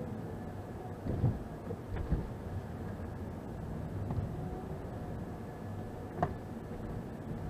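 Steady low engine and road hum inside a car's cabin as it drives slowly, with a few dull knocks about a second and two seconds in and a short click near the end.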